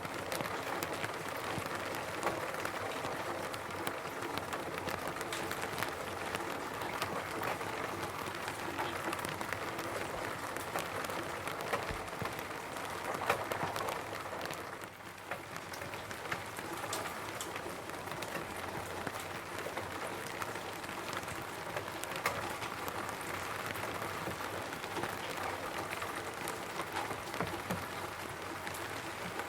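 Steady rain falling on a roof, with many separate drops pattering on the surface over a constant hiss. It eases slightly for a moment about halfway through.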